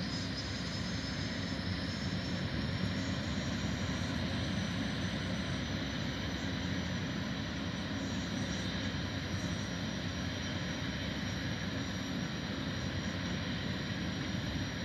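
Jetfoil's gas turbines running with a steady high whine over a deep, even rumble. The whine rises slightly in pitch over the first few seconds, then holds.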